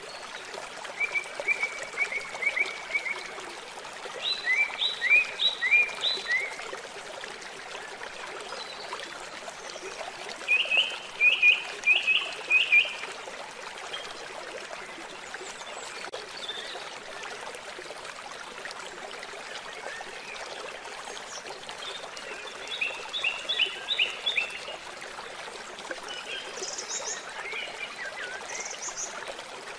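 Water trickling steadily, with a bird calling in four bursts of quick repeated chirps and a few higher, thinner notes near the end.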